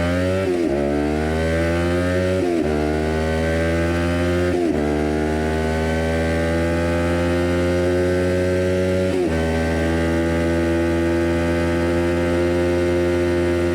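Kawasaki Ninja 400 parallel-twin engine through a full Jeskap aftermarket exhaust with the catalytic converter removed, accelerating through the gears. Quick upshifts come about half a second, two and a half, four and a half and nine seconds in, and the pitch climbs after each, more slowly in the higher gears.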